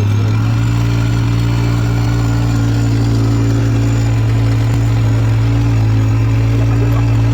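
ATV engine running at steady revs, a constant low hum that doesn't change in pitch.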